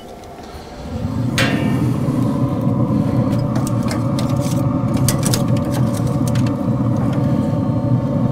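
Traeger pellet smoker opened with a knock about a second and a half in, then a steady low rumble with a faint hum from the smoker's fan and fire pot running with the lid up. Light metal clicks of tongs on the grate as the racks of ribs are lifted out.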